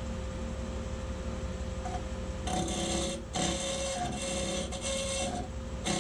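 Wood lathe running, and from about two and a half seconds in a hand-held turning tool cutting into the spinning open-segment tamarind vessel in several passes, with short breaks between them.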